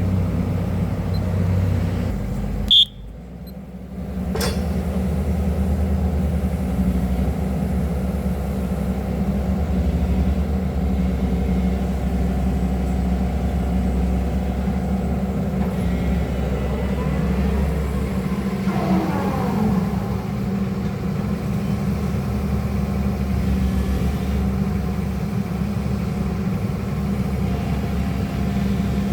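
Excavator's diesel engine running steadily as it works through a digging exercise, with a sharp click and a brief drop in sound about three seconds in. Faint tones rise and fall near the middle.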